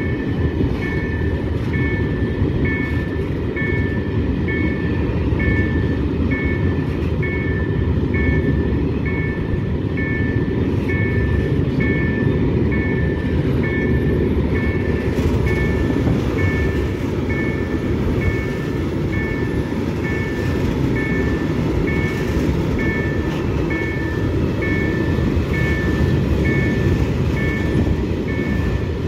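Freight train of loaded open coal wagons rolling past on the rails with a steady loud rumble. Over it, the level crossing's warning signal beeps in two high tones about twice a second.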